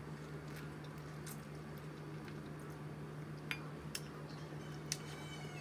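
Faint eating sounds: fingers licked and picking at food on a plate, a few small scattered clicks and smacks over a steady low hum.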